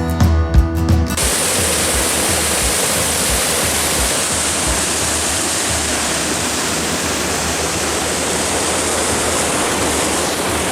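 Acoustic guitar music ends about a second in, giving way to the steady rush of a rocky mountain creek, Little Stony Creek tumbling along below the Cascades waterfall.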